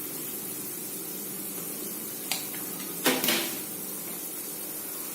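A vegetable masala mixture sizzling steadily in a pan, with a spoon knocking against the pan twice, about two and three seconds in.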